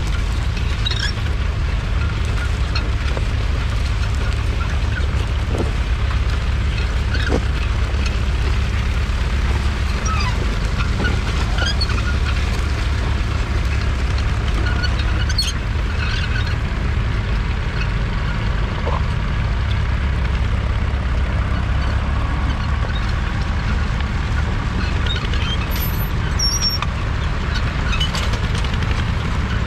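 1964 International Harvester B275's 2.3-litre four-cylinder diesel engine running steadily under load, pulling a two-furrow trailed plough through the soil.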